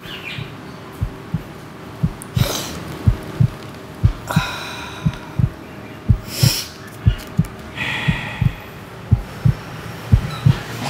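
Heartbeat sound effect, a steady low double thump about once a second, with three hard snorts through the nose about two seconds apart, as powder is sniffed up through a rolled tube.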